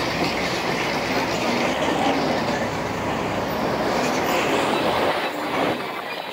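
Steady running noise of a tourist tram heard from on board as it rides through the streets, easing a little near the end.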